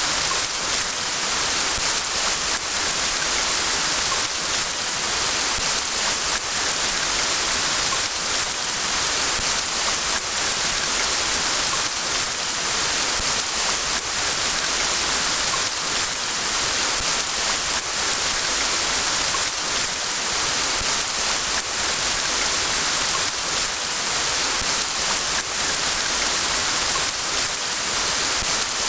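Steady rain: an even hiss with a fine patter of drops, unchanging in strength throughout.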